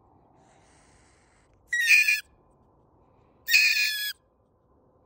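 Mink in a live trap giving two loud, high-pitched calls, each about half a second long, the second following about a second and a half after the first.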